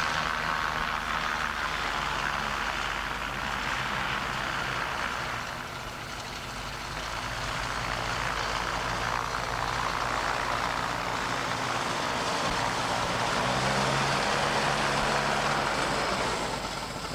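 König SD-570 three-cylinder two-stroke radial engine running up with its propeller turning, a steady loud engine noise that drops off a little about six seconds in and rises again toward the end.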